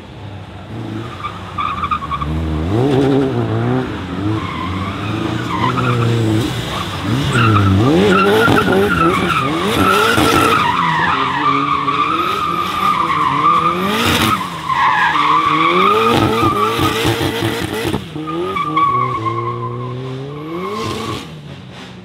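Nissan Silvia S15's 400 bhp turbocharged SR20DET four-cylinder revving up and down hard while the car does donuts, its rear tyres squealing and skidding continuously. There is one sharp crack about 14 seconds in.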